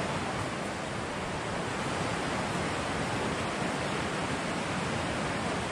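Steady rushing of a shallow, rocky river running white over boulders and rapids.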